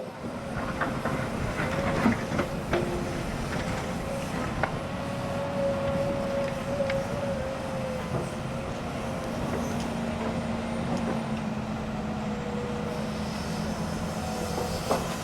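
Tracked hydraulic excavator working: a steady engine and hydraulic whine, with scattered metallic clanks and knocks.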